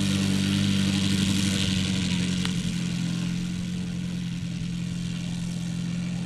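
Six-cylinder petrol engine of a large model biplane idling steadily on the ground.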